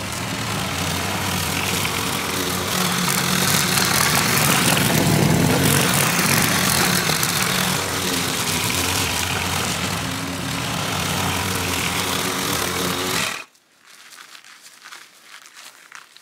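Gasoline walk-behind lawn mower running steadily while cutting long grass, then stopping abruptly near the end, after which only faint rustles remain.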